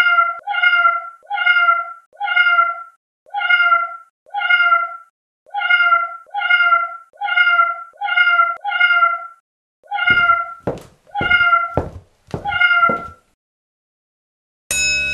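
A cat's meow played over and over, more than a dozen identical meows at about one a second. Sharp knocks fall between the last few meows, and a sustained ringing tone starts near the end.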